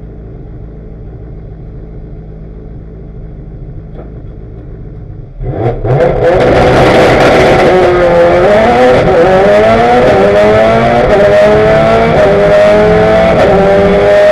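Engine of a 536 bhp Ford Focus hillclimb race car, heard from inside the cabin: it idles steadily, then about five seconds in it launches at full throttle, much louder, its pitch climbing and dropping back at each of several quick upshifts.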